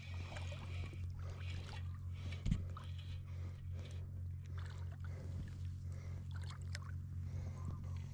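Ultralight spinning reel being cranked as a small freshwater drum is reeled in, with faint irregular clicking and light water splashing. One brief knock about two and a half seconds in, over a steady low hum.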